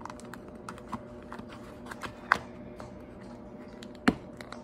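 Irregular small plastic clicks and taps from the parts of a toy robot figure being handled and fitted, with two louder snaps, about two seconds in and near the end.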